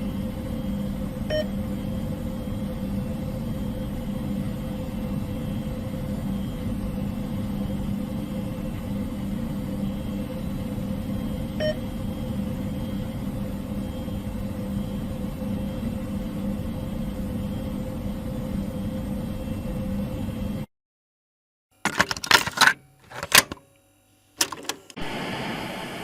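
A steady low hum with hiss, carrying two faint ticks about ten seconds apart, cuts off abruptly after about twenty seconds. A few sharp crackling bursts of distortion follow, then a short stretch of static hiss near the end.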